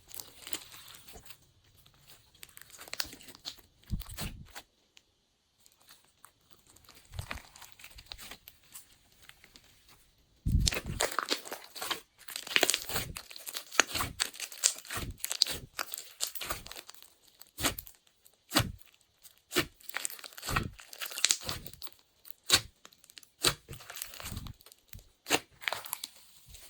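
Glossy slime being squeezed, stretched and folded by hand, giving irregular clicks, pops and crackles. They are sparse and quieter at first, then come thick and louder from about ten seconds in.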